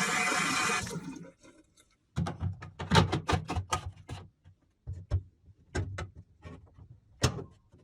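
Water running that stops about a second in, then a string of irregular knocks and clatters from hard objects being handled.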